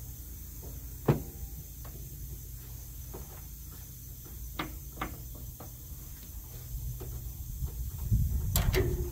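Scattered knocks and clinks of tools and metal parts being handled, over a low steady rumble. A sharp knock comes about a second in, and the rumble and clatter grow louder near the end.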